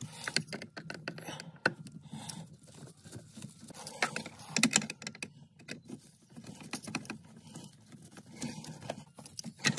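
Irregular small clicks, taps and rattles of a screwdriver against hard plastic as the HVAC ducting of a Porsche 968 is worked loose.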